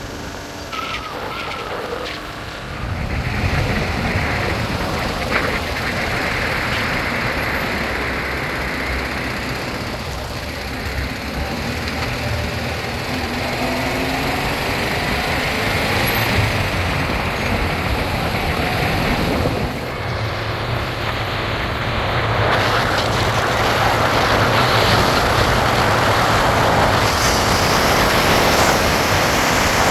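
A motor vehicle running steadily: a low engine hum under a dense rushing noise that grows louder near the end.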